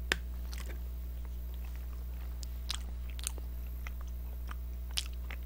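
A person eating a large chapssaltteok (glutinous rice cake), chewing quietly with a few short sharp clicks, over a steady low hum.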